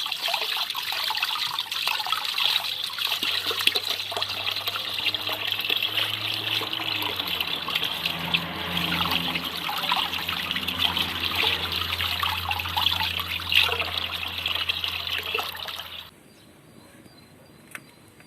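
Running water trickling and splashing as mackerel is rinsed clean; it cuts off suddenly near the end.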